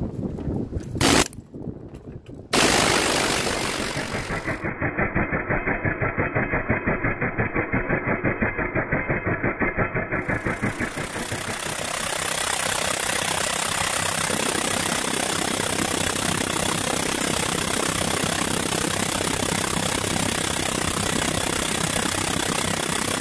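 Needle scaler hammering on the cast iron dial of a clock, stripping off old paint. After a sharp knock about a second in, it starts up at about two and a half seconds with a pulsing rattle, then settles into a steady buzz.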